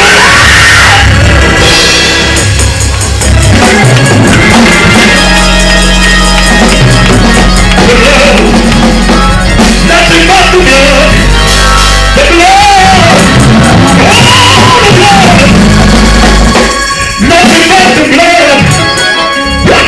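Loud live gospel praise music: drums and held bass notes, with voices singing and shouting over the band.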